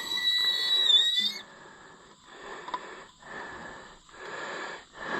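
A jack letting a tractor's raised rear end down: a high whistling squeal for about a second and a half, then a run of breathy hisses about a second apart.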